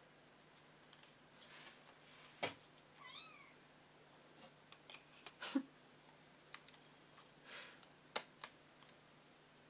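A kitten gives one short, high mew about three seconds in, faint against scattered soft clicks and rustles of paper and plastic being handled.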